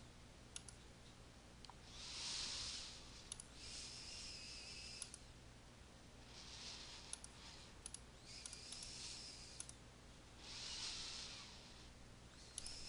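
Faint computer mouse clicks, one every second or two, with soft breathing into a close microphone swelling and fading about every four seconds.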